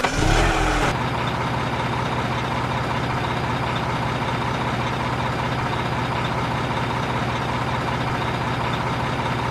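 Diesel truck engine just after starting: a brief rising rev in the first second, then it settles into a steady, even idle.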